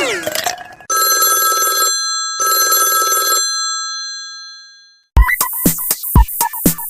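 Samsung Galaxy S (GT-I9000) ringtones. The tail of one tune fades out with sliding notes, then a telephone-bell ringtone rings twice in bursts about a second long and rings away. About five seconds in, another ringtone starts with a drum beat and a melody.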